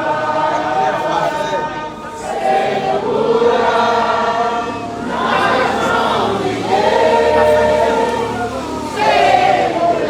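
A large group of voices singing together, like a congregation singing a hymn, in long held phrases with brief breaks between them.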